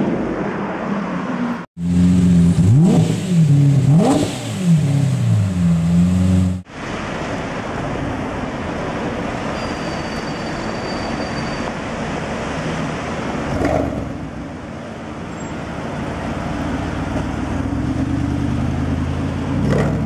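Performance car engine revving hard in a street: several throttle blips whose pitch climbs steeply and falls back over about five seconds, starting and stopping abruptly. Then steady street traffic noise, with a Mercedes G-Class engine growing louder near the end as it pulls away.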